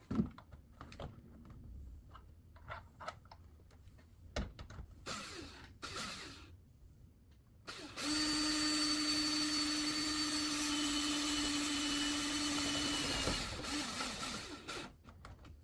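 Handheld drill driving a self-tapping screw. Scattered clicks and knocks come first, as the screw and drill are handled. About eight seconds in the drill runs at a steady pitch for about five seconds, then winds down and stops.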